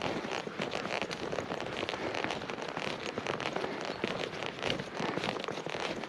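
Footsteps crunching through fresh snow: a dense, irregular crackle of steps.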